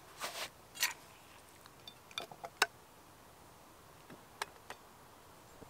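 Light metal clicks and clinks of a Trangia Mini camp stove and its pan being handled and set in place. Two short scrapes come first, then a handful of sharp clicks spread over the next few seconds.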